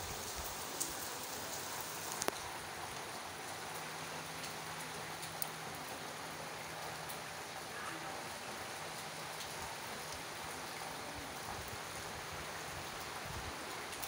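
Steady rain falling on trees and rooftops: an even hiss with a few sharper drip clicks scattered through it.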